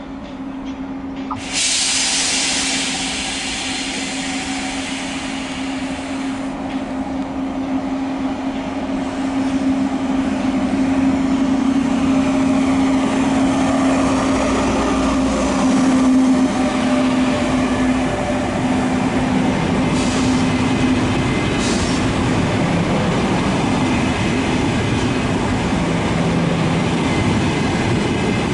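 Electric train running along the tracks: a steady hum with a loud rushing noise that comes in suddenly about a second and a half in, and two short sharp sounds near the end.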